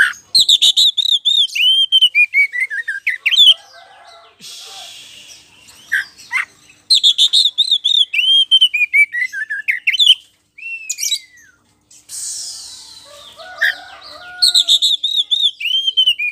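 Oriental magpie-robin (kacer poci) singing loud, clear whistled phrases in three bouts. Each bout is a fast run of repeated notes that drops in pitch and then climbs back up. A hissing noise sounds between the bouts.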